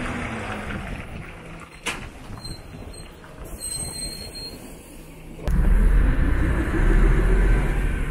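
City bus diesel engine slowing as the bus pulls in, its pitch falling. There is a sharp click about two seconds in and a short high tone near four seconds. About five and a half seconds in, the much louder low rumble of the engine is heard from inside the bus cabin, its pitch rising as the bus pulls away.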